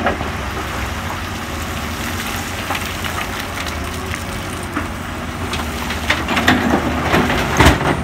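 Komatsu PC200 hydraulic excavator's diesel engine running steadily under load as it scoops broken rock. From about six seconds in, rock clatters and knocks, with one loud bang just before the end as the load goes into the dump truck's bed.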